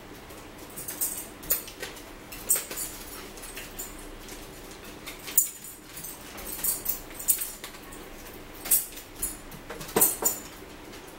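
Scattered short clicks, taps and scrapes of tableware at a meal: a fork working against a plastic plate and a small plastic bottle being handled, about ten sharp sounds at irregular intervals over a faint steady background hum.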